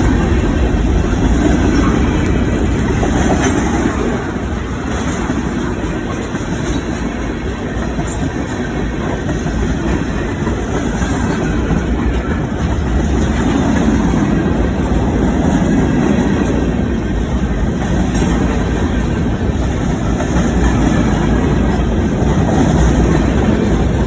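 A train running: a loud, steady rumble that eases slightly a few seconds in and then holds.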